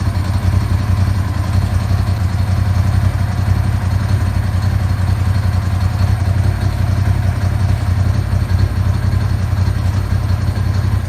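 Ducati 916's 90-degree V-twin engine running at a steady idle, freshly restarted after a timing-belt and valve service and settled at a normal idle.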